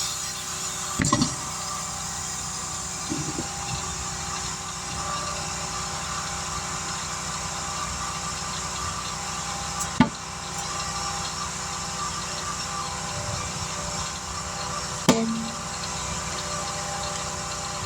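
Engine idling steadily, broken by three sharp knocks of tool work: one about a second in, one near the middle and one near the end.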